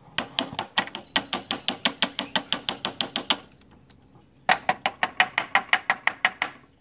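Rapid, evenly spaced metallic clicking, about six clicks a second, from a hand tool worked at a plasma cutter's internal air regulator and filter. It comes in two runs, with a pause of about a second between them.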